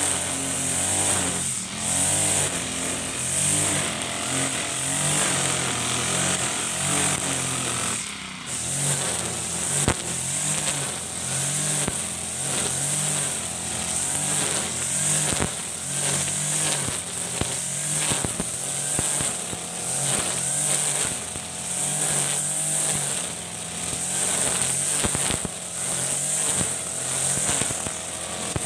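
Ogawa GX35 four-stroke brush cutter running at cutting speed, its nylon line slashing through tall grass with a steady high whine. The engine speed rises and falls over and over as the throttle is worked, with short ticks from the line striking stems and debris.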